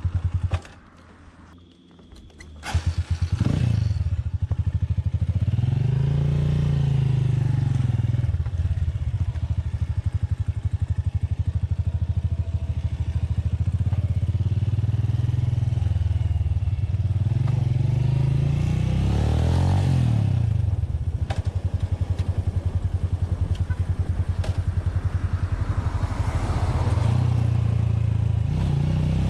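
Motorcycle engine heard from the saddle as the bike is ridden, with a brief quieter lull near the start. The engine note then climbs and drops back several times as it pulls away and works through the gears.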